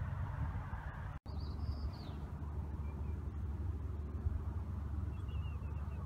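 Wind rumbling on the microphone on an open tidal shore, with one short high bird call just after a second in that drops in pitch at its end, and a few faint chirps near the end.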